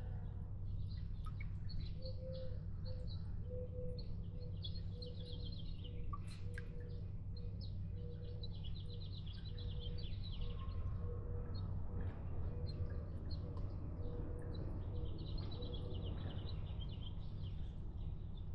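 Small birds chirping and singing in several bouts of quick high trills over a steady low background rumble. For most of the stretch a short low note repeats evenly, about once every 0.7 seconds.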